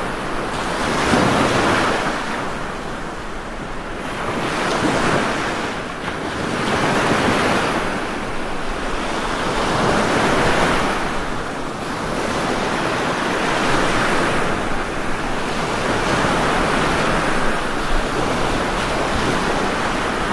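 Ocean surf breaking, a steady rush of water noise that swells and eases with each wave every few seconds.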